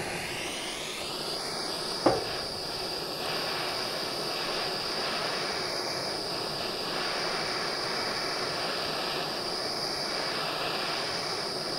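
Gas blowtorch burning with a steady hiss, with a single sharp pop about two seconds in.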